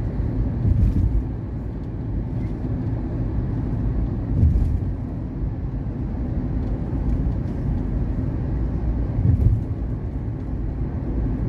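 Car cabin noise while driving: a steady low road and engine rumble, with a few short louder thumps about a second, four and a half seconds and nine seconds in.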